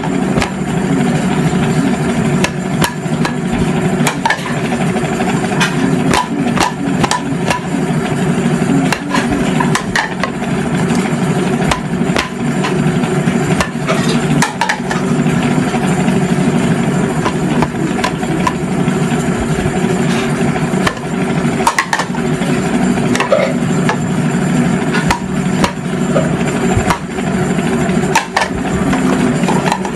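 Utensils being handled and wiped clean with a cloth: many irregular clinks and knocks over a steady background hum.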